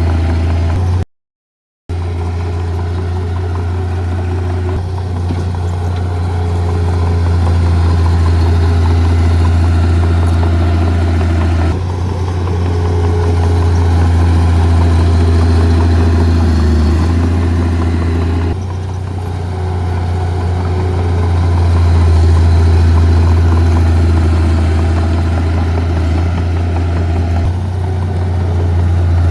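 Heavy earthmoving machine's diesel engine running steadily with a strong low hum, its pitch shifting slightly at several abrupt changes. The sound drops out completely for under a second about a second in.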